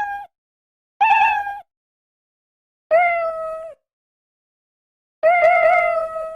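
Domestic cat meowing: three separate meows, each half a second to over a second long, after the tail of one at the very start, with silence between them. The later meows are a little lower and drawn out longer.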